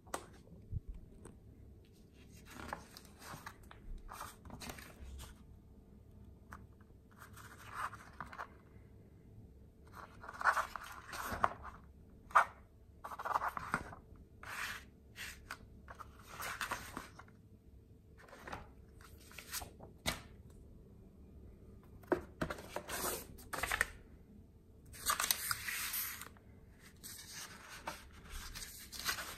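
Paper instruction manual and loose printed sheets rustling and crinkling as pages are turned and handled, in irregular bursts with a few sharper snaps of paper.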